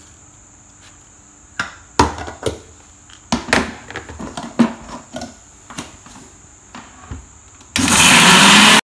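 Dry peeled melon seeds clattering in irregular handfuls as they are dropped into a plastic blender cup. Near the end the electric blender runs briefly, a loud steady rush lasting about a second that cuts off suddenly.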